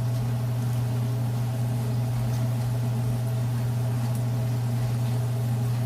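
Steady low hum, unchanging at an even level, with a strong low tone and fainter higher tones above it.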